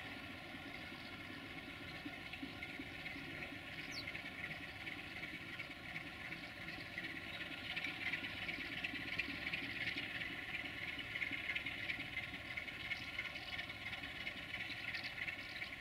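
Diesel locomotive engine running steadily with a constant hum as the locomotive moves slowly away, with a hiss that grows a little louder about halfway through.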